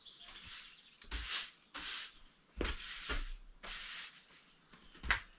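Broom sweeping a hut floor: a series of brushing strokes, about one a second.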